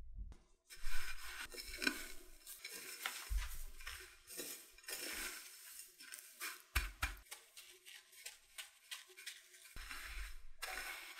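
Dry breadcrumbs rustling and crunching as hands press and roll a battered corn dog in a dish of crumbs, with irregular crackles and a few soft low thumps.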